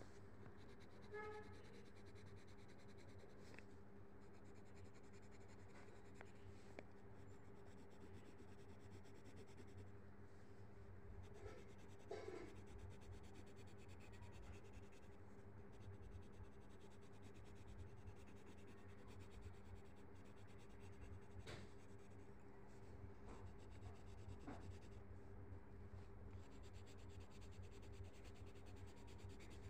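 Faint scratching of a coloured pencil shading on paper, over a steady low hum.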